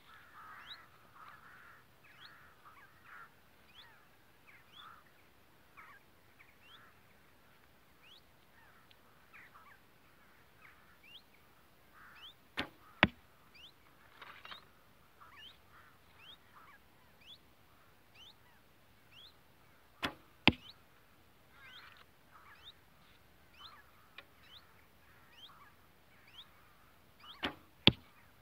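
Three arrows shot from a 40 lb Bearpaw Slick Stick traditional bow. Each shot is heard as a pair of sharp sounds about half a second apart, the string's release and then a louder smack as the wooden arrow strikes the target. Faint high chirping runs throughout.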